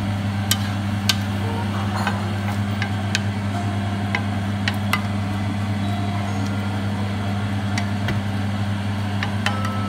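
Wooden spatula stirring shredded chicken in a nonstick frying pan, with a handful of sharp, irregular clicks as it knocks against the pan, over a steady low hum.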